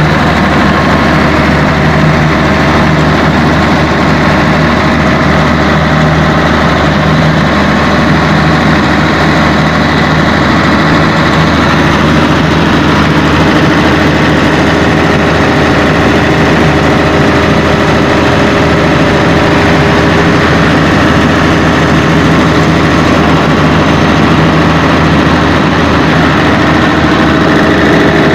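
Cummins KTA1150 six-cylinder turbocharged diesel engine, freshly overhauled, running loud and steady under load on its trial run as a generator set.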